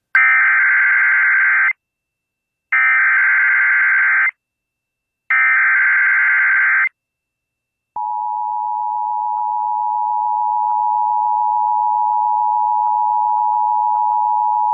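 Emergency Alert System tones announcing a severe thunderstorm warning: three identical bursts of the SAME digital header, a harsh data warble each about a second and a half long with silent gaps between, then about eight seconds in the steady two-tone EAS attention signal (853 and 960 Hz) starts and holds.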